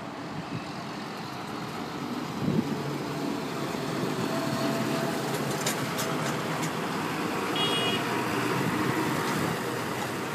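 A large tractor drives past close by, its engine running and growing louder over the first few seconds as it approaches, with cars passing as well.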